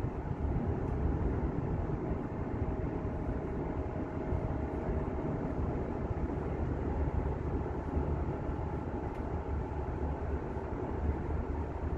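Steady road and engine noise inside the cabin of a moving car on a highway.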